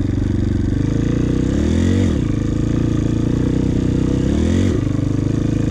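Dirt bike engine running under load, its pitch climbing twice, about two seconds in and again near the end, each time falling off sharply at a gear change. The shifts are made while the throttle is still held on, a common beginner mistake.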